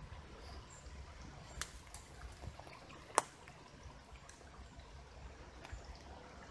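Faint trickling of running water under a low rumble, with a few small clicks and one sharp click about three seconds in.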